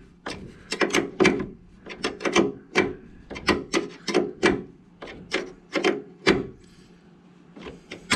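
A wrench turning the 10 mm nut on a rivet-nut installer bolt, drawing up and flaring a nut insert in a truck tailgate. It makes a series of short rasping clicks, about two to three a second, that pause briefly near the end.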